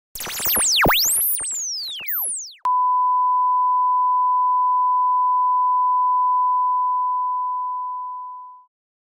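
A burst of electronic tones swooping up and down for about two and a half seconds, then a steady single-pitch television test tone that fades out near the end.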